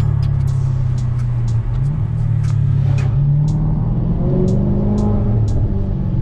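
Tuned Maserati GranTurismo S's 4.7-litre V8, fitted with an aftermarket valved exhaust, heard from inside the cabin while driving. The engine note dips briefly about a second and a half in, then climbs in pitch as the car pulls ahead, with light ticks about twice a second.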